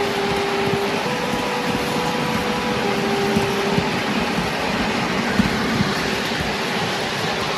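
Miniature railway train running along the track: a steady rush of wind and wheel-on-rail noise, with a few short knocks in the second half. A faint tone steps up and then back down during the first four seconds.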